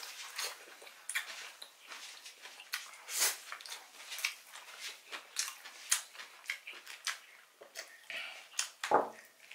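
Close-up eating sounds: irregular wet smacks and clicks of chewing and lip-smacking as grilled food is eaten by hand, with one louder knock near the end.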